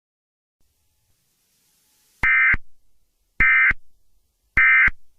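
Emergency Alert System end-of-message signal: three short bursts of warbling SAME data tones, each about a third of a second long and about a second apart, starting about two seconds in, marking the end of the alert.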